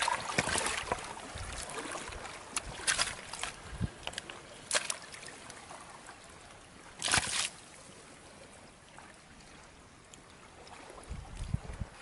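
Water splashing in irregular bursts over a faint trickling background, the loudest splash about seven seconds in, with a few dull low knocks between.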